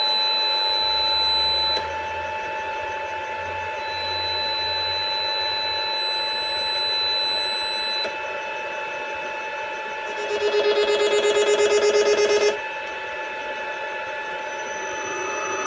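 Lathe motor fed by a VFD, singing an electrical whine during the drive's no-load motor auto-tuning test. Several steady tones hold at one pitch while higher tones switch in and out. From about ten seconds in, a louder warbling tone pulses several times a second for a couple of seconds, then stops abruptly.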